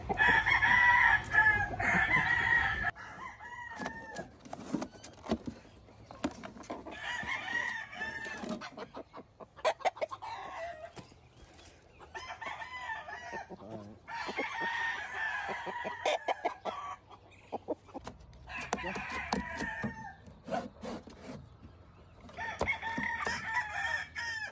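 Game fowl roosters crowing repeatedly, one long crow every four to five seconds or so, with scattered clicks and knocks between the crows.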